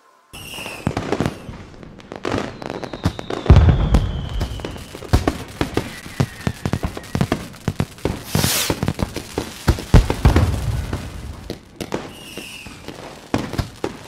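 Fireworks display: dense crackling and popping with heavy booms about three and a half and ten seconds in, and a falling whistle between them.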